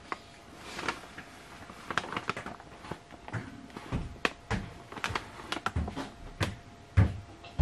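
Irregular light clicks and soft knocks from working a laptop while navigating its settings, coming a few a second at times, over a faint steady hum.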